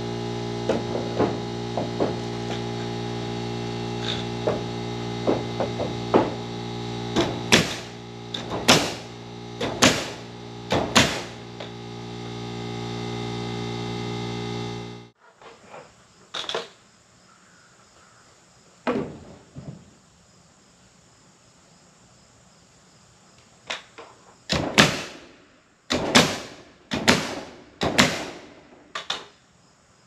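A pneumatic nail gun firing a string of sharp shots as oak boards are nailed up. Through the first half an air compressor hums steadily, then cuts off suddenly; later the nailer fires a quick run of shots about a second apart.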